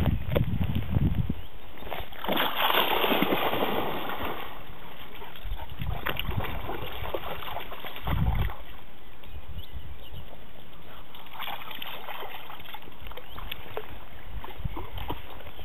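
Border collie splashing as it wades through shallow lake water, with a longer burst of splashing about two to four seconds in. Low rumble on the microphone at the start and again around eight seconds.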